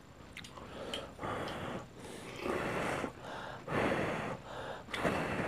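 Heavy breathing through the nose in a series of noisy puffs about a second apart, by someone chewing a big mouthful of lettuce wrap.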